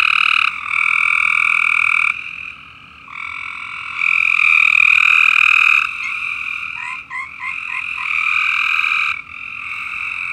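A chorus of frogs calling: long, overlapping trilled calls that start and stop every few seconds, with a quick run of about five short chirps around seven seconds in.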